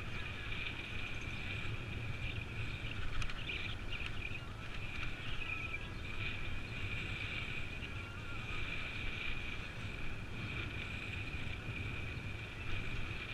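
Steady ride noise from a camera on a moving bicycle: low wind and road rumble, with a constant high-pitched whine.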